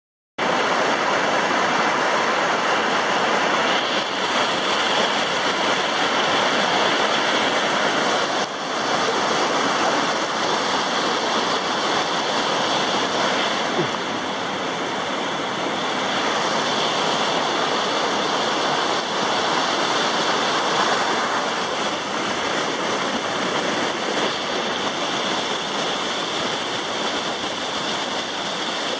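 Steady rush of a small waterfall pouring over granite rocks close by, starting abruptly about half a second in.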